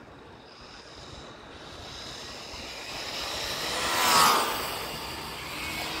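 A vehicle passing: its noise swells to a peak about four seconds in, with a brief whine at the peak, then fades.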